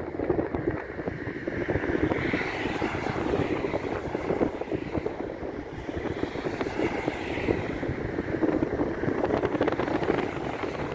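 Wind buffeting the microphone over the distant roar of a jet airliner's engines at takeoff power, the engine sound swelling twice. A car passes close by near the end.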